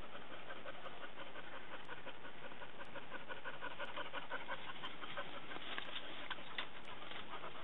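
A dog panting in a quick, even rhythm, strongest in the middle and easing off near the end.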